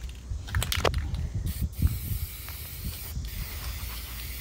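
Aerosol can of black spray paint hissing as it sprays, with a steady hiss that starts about a second and a half in and breaks off briefly once. A few sharp clicks come before it in the first second.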